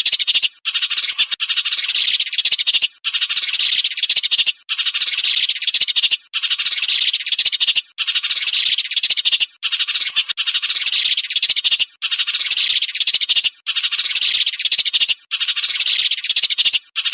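A flock of sparrows chirping and chattering densely, played as a lure call for trapping. The chatter comes in stretches of about one and a half to two seconds with brief breaks between them, over and over.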